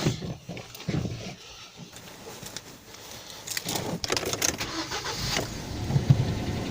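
Hyundai Solaris engine being started from cold: a few short noises, then the engine catches about four seconds in and keeps running, the cold start at which the owner hears a knock.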